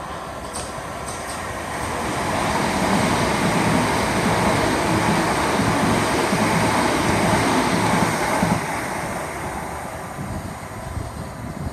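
Southern class 377 Electrostar electric multiple unit passing through the station at speed. The noise of its wheels on the rails swells about two seconds in, stays loud for some six seconds, then fades.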